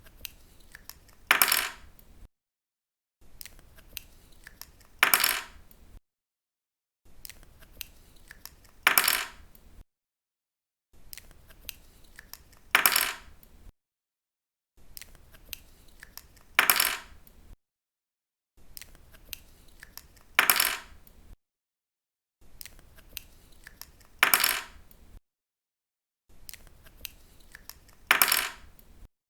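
Pen cap pulled off with faint small clicks, then put down on a table with a short, sharp clatter. The pair repeats eight times, about every four seconds.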